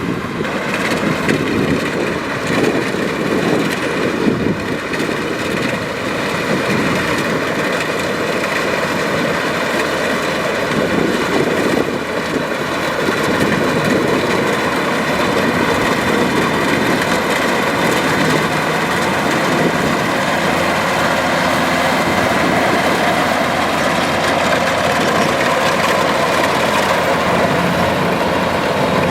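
Kubota DC-105X combine harvester's diesel engine and machinery running steadily, a continuous engine hum over a rushing mechanical noise.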